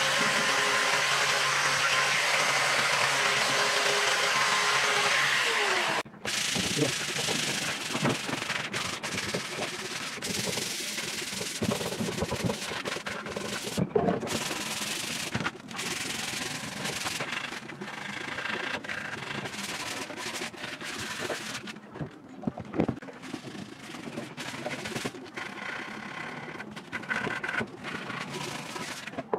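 Angle grinder with a sanding pad running steadily against wood, cutting off abruptly about six seconds in. After that, sandpaper is rubbed by hand over the wood in irregular strokes.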